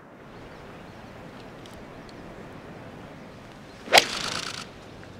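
A golf ball struck off the tee with an 8-iron: a single sharp crack about four seconds in, followed by a brief high hiss as the ball flies off.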